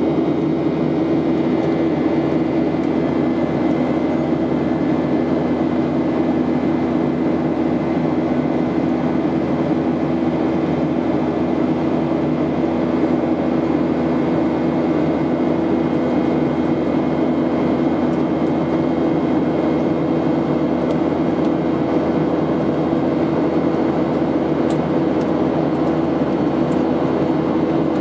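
Steady jet airliner cabin noise in flight: engine and airflow drone with a constant low hum, unchanging throughout.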